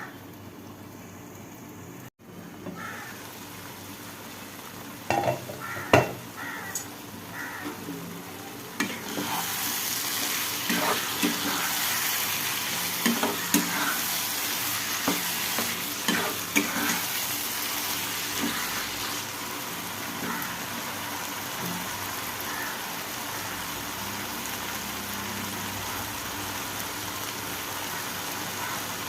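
Chicken masala frying in a pan while it is stirred, the spoon knocking and scraping against the pan. The sizzle gets louder about nine seconds in.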